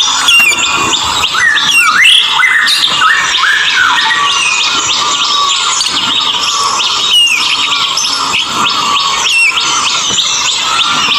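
Wild white-rumped shama (murai batu) singing a long, varied song: a fast, unbroken run of whistled notes that slide up and down in pitch.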